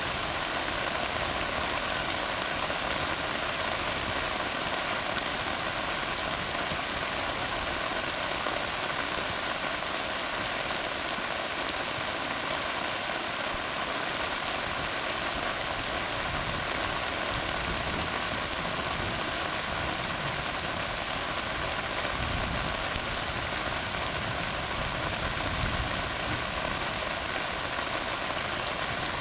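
Steady rain falling on a tar road: a dense, even hiss of drops that does not let up.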